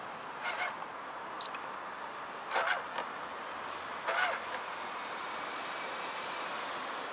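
Steady rushing background noise with a single sharp click about a second and a half in and a few short chirp-like sounds in the first half.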